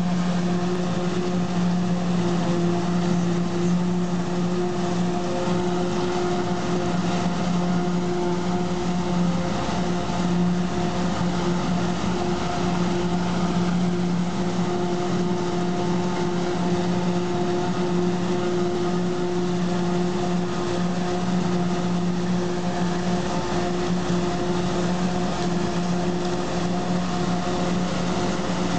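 Self-propelled forage harvester chopping standing maize for silage and blowing it into a trailer pulled alongside by a tractor: a steady engine and chopper drone with a strong, even hum that does not change.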